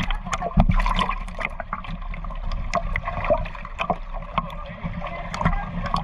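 Water sloshing and gurgling right against a half-submerged camera as a crowd of feeding fish churns the surface, with many short sharp pops and splashes scattered throughout over a low muffled rumble.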